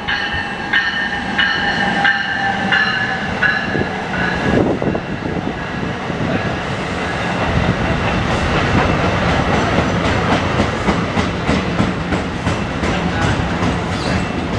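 NJ Transit bi-level commuter train rolling in past the platform, pushed by an ALP-46 electric locomotive. A bell rings about one and a half times a second and stops about four seconds in. After that the passing cars give a steady rumble with a low hum and a clickety-clack of wheels over rail joints.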